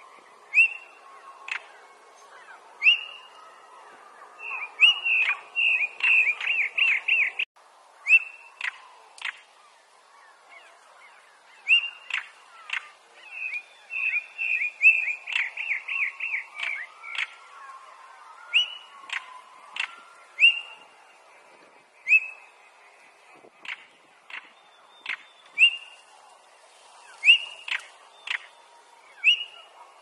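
European stonechat calling: short whistled notes that fall in pitch, twice running together in quick rapid series, mixed with sharp clicking notes.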